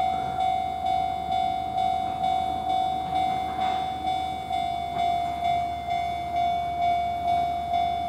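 Japanese railway level-crossing warning bell ringing its electronic ding, a steady even repeat of about two and a half strikes a second, sounding while the crossing is closed for an approaching train.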